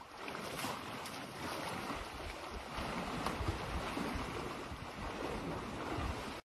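Wind buffeting the microphone outdoors: a steady rushing noise with irregular low gusts.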